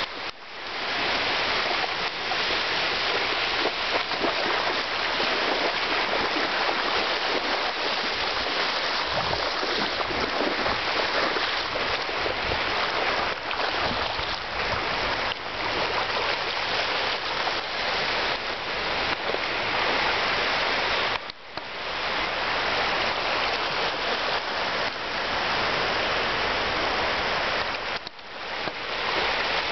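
Steady rush of small surf waves and shallow seawater, with a dog wading and splashing through it. The sound cuts out briefly twice, about two-thirds through and near the end.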